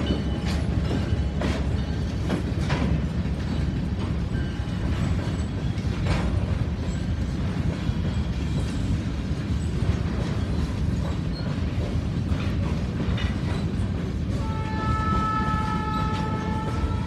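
Freight train of covered hopper cars rolling past with a steady low rumble and scattered clicks of the wheels over rail joints. The train horn starts a long steady blast about two and a half seconds before the end.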